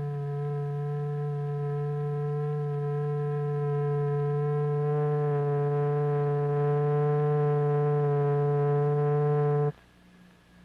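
A steady electronic tone with a stack of overtones, the drive note of a cymatics vibration experiment. About halfway through it turns slightly louder and richer in overtones, then cuts off suddenly near the end, leaving a faint hum.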